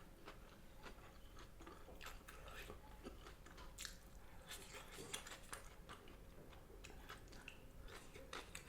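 A person quietly chewing food, with faint irregular crunchy bites.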